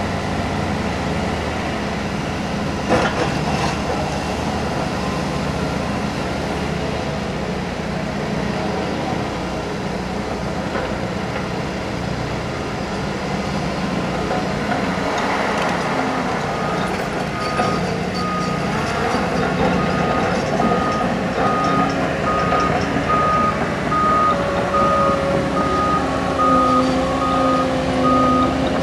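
Heavy construction machinery's diesel engine running steadily, with a single knock about three seconds in. From a little past halfway a reversing alarm beeps steadily as the machine backs up.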